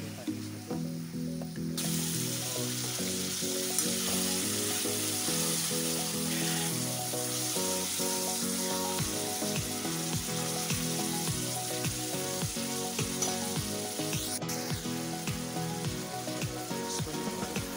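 Pork sizzling loudly in hot oil and spice paste in a steel kadai. The sizzle starts suddenly about two seconds in, as the meat goes into the pan. Later a steel ladle clicks and scrapes against the pan as the meat is stirred.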